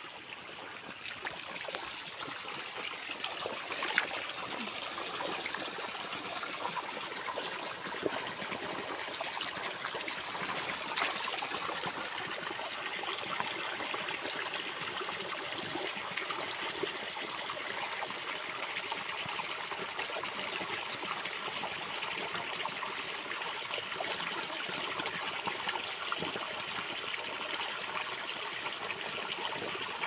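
Water flowing steadily through a shallow farm ditch, a constant rush and trickle with a few faint ticks.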